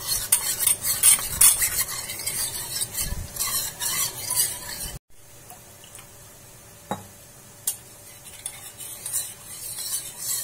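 A spoon stirring and scraping quickly around a kadai of boiling gravy, mixing in cornflour slurry so it thickens without lumps. After a sudden cut about halfway, only faint simmering and a few single taps remain.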